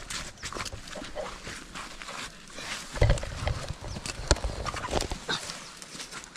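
A string of irregular clicks and knocks, with the loudest about three seconds and about four seconds in, a low rumble under the first of them.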